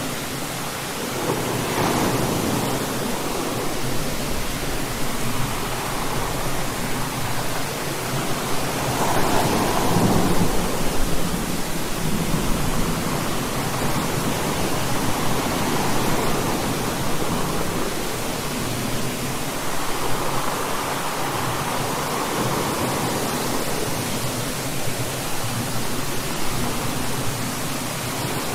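Steady heavy rain hissing, with distant thunder rolling and rumbling several times over it. The loudest roll comes about ten seconds in.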